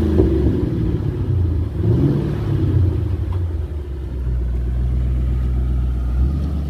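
2005 Ford Mustang GT's 4.6-litre V8 running as the car is manoeuvred at low speed. Its pitch rises and falls around two seconds in, then it settles into a steady low note.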